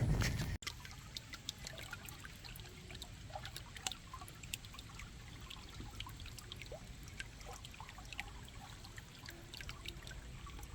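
Water trickling in a small irrigation channel, quiet and steady, with many small drips and splashes.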